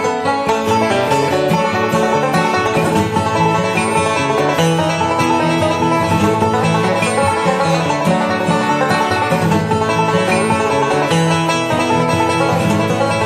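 Instrumental country music led by a picked banjo with guitar, playing steadily as a soundtrack.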